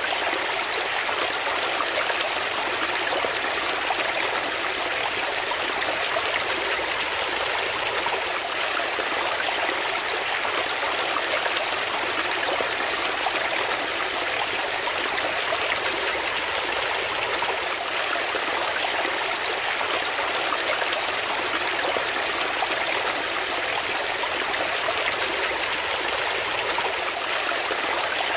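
A small brook running and splashing over rocks in a shallow cascade, a steady rush of water with close-up splashing.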